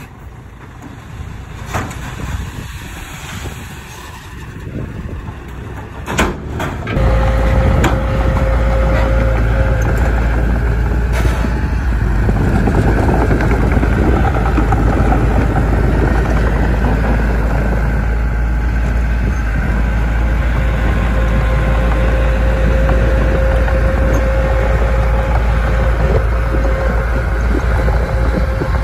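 Heavy diesel earthmoving machinery. It runs more quietly, with a couple of sharp knocks, for the first few seconds. At about seven seconds it jumps suddenly to a loud, steady, low engine running, with a thin whine coming and going over it.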